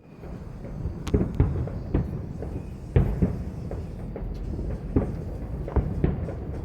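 Fireworks going off all around: irregular sharp bangs and pops, some close and loud, over a steady low rumble of distant bursts.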